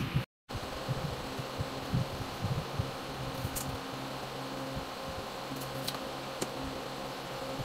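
Steady mechanical hum, with a few light knocks in the first two seconds and three sharp clicks later on, from a tape measure being handled on a sheet panel.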